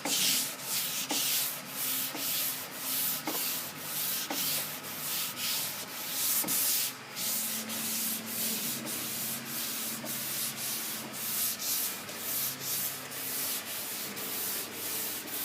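Hand block sanding with a Curvecaster curved sanding board across a primed car trunk lid: a rhythmic rasp of back-and-forth strokes, about two a second.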